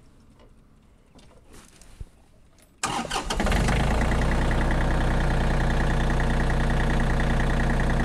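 John Deere 3025E compact tractor's diesel engine cold-started: after a few small clicks it cranks and catches about three seconds in, then settles quickly into a steady idle at about 1,200 rpm.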